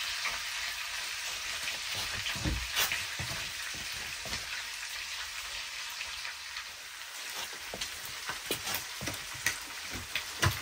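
Bacon and mini sausages sizzling steadily in a frying pan, with a few scrapes and knocks of a utensil stirring them.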